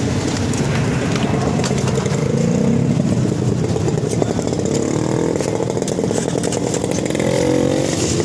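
Motorcycle engine running at low speed, its pitch drifting up and down a little.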